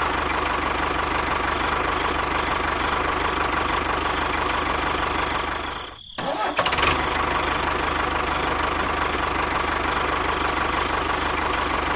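A motor or engine running steadily with a constant whine. It cuts out for a moment about halfway through and starts running again straight away.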